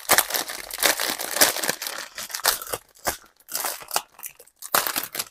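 Crinkling and rustling of thin clear plastic bags as a strip of sealed diamond painting drill bags is handled and pulled from its outer bag; irregular crackling with brief pauses about three and four and a half seconds in.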